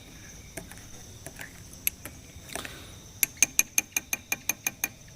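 Steady high insect drone from the forest, with a few scattered clicks and then, about three seconds in, a quick, even run of about ten sharp clicks that fade slightly as they go.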